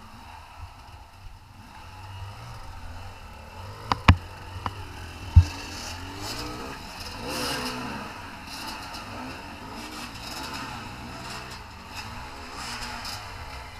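Off-road motorcycle engine running with its revs rising and falling, under a rushing noise on the camera microphone. A few sharp knocks come between about four and five and a half seconds in.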